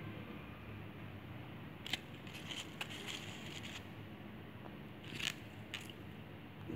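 Crepe paper rustling, with a few light clicks and taps as hands handle a small plastic bottle and craft materials.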